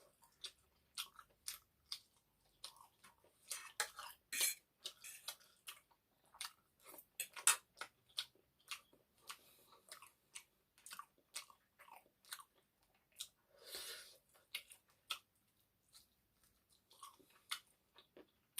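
Close-miked chewing of egg noodles and chicken curry: wet mouth clicks and smacks, a few a second, with a longer noisy mouth sound about fourteen seconds in.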